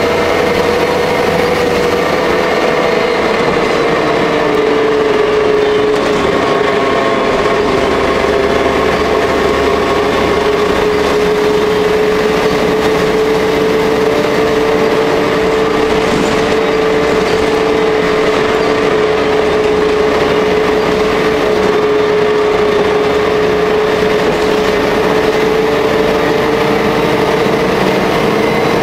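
Jelcz L100 city bus running, heard from inside the passenger cabin: a steady engine and drivetrain rumble with a prominent whine that sags slightly in pitch a few seconds in and rises again near the end.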